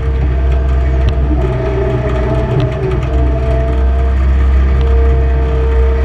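Skid steer loader's engine running steadily, a low drone with a steady whine above it, heard from inside the open cage cab while the machine is operated.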